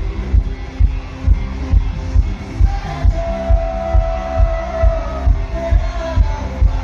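A live band with electric guitar playing over a heavy bass beat of about two beats a second, with one long held note near the middle.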